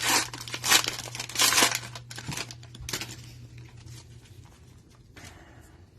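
Plastic wrapper of a trading-card hanger pack being torn open and crinkled in the hands, in several loud rustling bursts over the first two seconds that then die down to faint handling.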